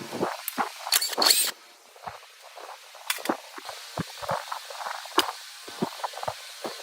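Irregular clicks, taps and knocks of hand work on metal parts, with two short scraping rasps about a second in.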